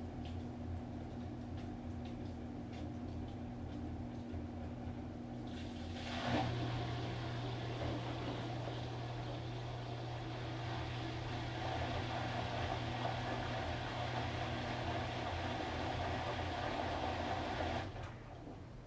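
Washing machine running with a steady hum; about six seconds in the motor starts up and the sound grows louder and fuller, then drops back shortly before the end, as the drum turns and pauses during the wash cycle.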